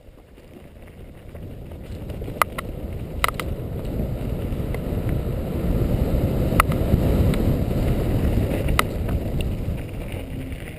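A mountain bike rushing down a dirt forest trail: tyre rumble and wind on the helmet-mounted camera, building as the bike gathers speed and easing near the end, with a few sharp clicks from the bike rattling over bumps.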